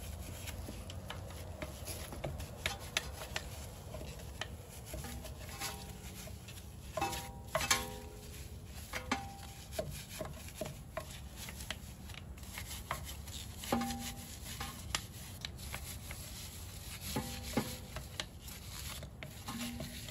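A wheel brush scrubbing a wet alloy car wheel: irregular brushing and scraping strokes with light knocks against the rim, and a few brief squeaks.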